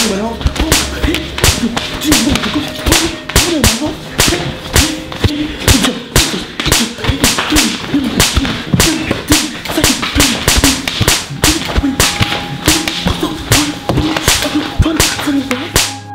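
A rapid, irregular run of sharp smacking hits, about three or four a second, like a beating with slaps or whip cracks, with a man's pained cries underneath.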